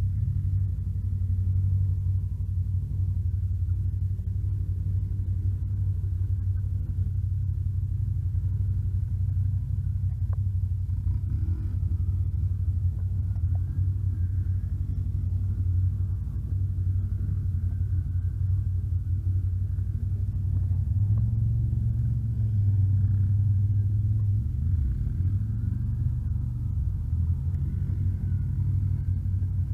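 ATV engine running steadily, a low rumbling drone that grows a little louder about two-thirds of the way through.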